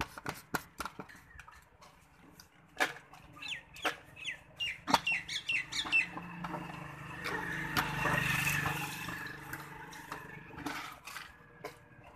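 Plastic jars, lids and cups knocking and clicking as they are picked up and set down. A quick run of short, falling bird chirps comes a few seconds in. A broad noise with a low hum swells and fades in the middle, loudest about eight seconds in.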